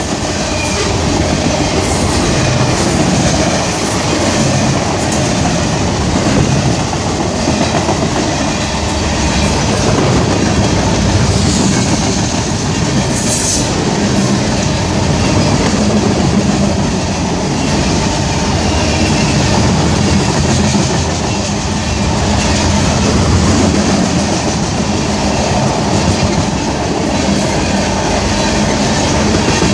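Train cars rolling past at speed: a steady, loud rumble of steel wheels on rail with rhythmic clickety-clack and a faint, intermittent wheel squeal.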